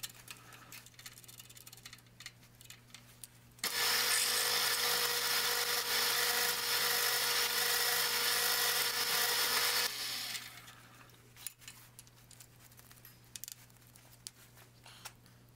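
Mini mill's spindle motor starting up, running steadily while a twist drill bores into a metal block, then switching off about ten seconds in. Before and after, small clicks and knocks from handling the drill bit and chuck.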